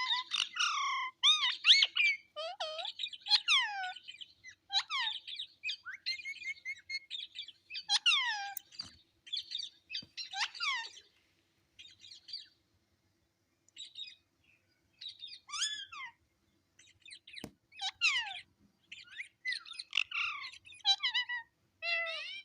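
Pet parrot chirping and squawking in quick bouts of short rising and falling calls, with a few brief pauses partway through.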